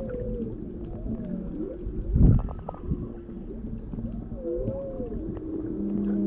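Humpback whale song heard underwater: a run of calls that slide up and down in pitch over a low rumble, with one short, loud low sound about two seconds in.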